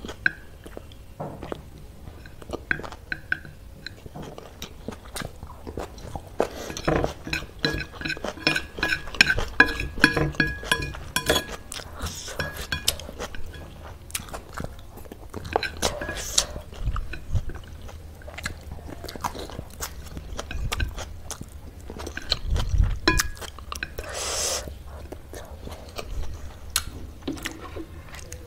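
Close-up mouth sounds of someone eating chow mein noodles: wet chewing and biting, with many short sharp clicks throughout.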